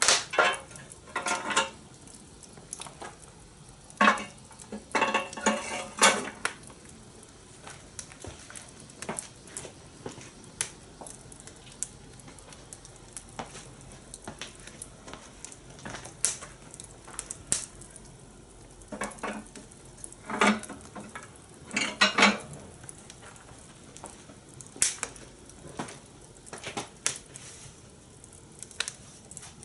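Metal clattering of cooking tools on a steel fire-pit grill, in three short flurries of strokes with single small clicks and crackles scattered between them over a steady low hiss.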